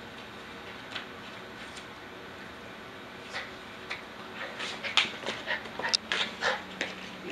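Dog chewing and tearing a cardboard toilet paper roll. A few sparse crackles come first, then a quick run of crunching and ripping about halfway through.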